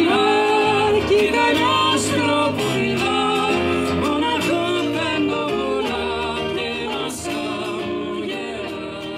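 Live song: a woman singing with a man's voice alongside, to a strummed acoustic guitar, amplified through microphones. It gets gradually quieter toward the end.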